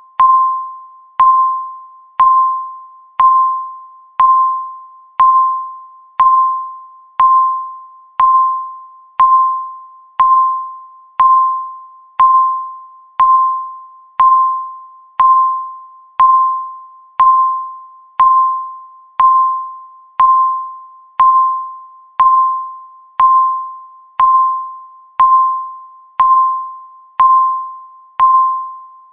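Countdown timer's ticking sound: a short bell-like tick once a second, each starting sharply and fading out before the next, in a steady even rhythm.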